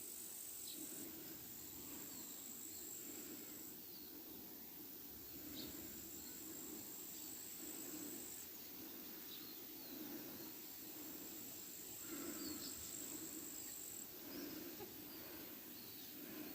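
A high, steady insect trill that comes in bouts of two to four seconds with short pauses between, over a faint low background hum, with brief faint chirps scattered through it.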